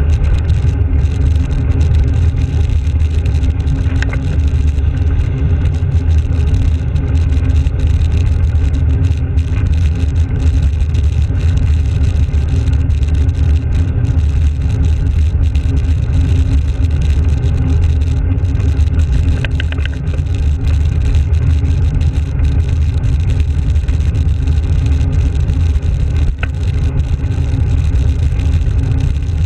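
Steady low rumble of wind buffeting and road noise on a handlebar-mounted GoPro Hero while a bicycle rides along a tarmac road.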